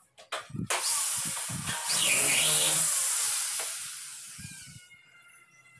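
A handheld power tool starts up with a loud, hissy whir, runs for about four seconds, then slowly fades away as it winds down. Faint high tones ring on briefly near the end.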